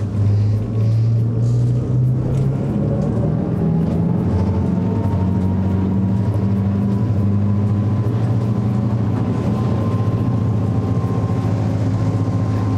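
Boat's engines at full throttle, heard from inside the wheelhouse, accelerating hard from a standstill to about 30 knots: a steady low engine drone with a faint whine that rises slowly in pitch.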